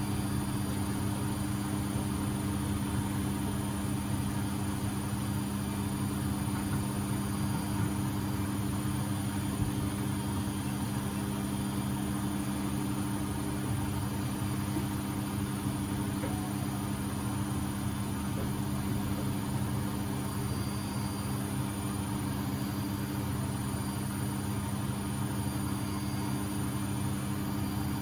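Beko WMB71642W washing machine in its final spin at 1000 rpm: the drum spinning at full speed with a steady motor hum and low rumble.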